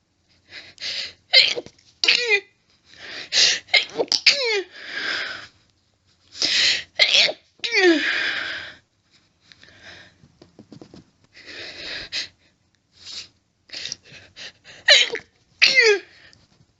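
A woman's rapid fit of harsh stifled sneezes: many short bursts in quick clusters, several sweeping down in pitch, with breaths between. There is a quieter lull in the middle before a last cluster near the end.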